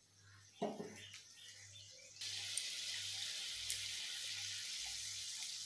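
Water pouring in a steady stream from a steel container into curry simmering in a karai, starting about two seconds in, after a brief clink near the start.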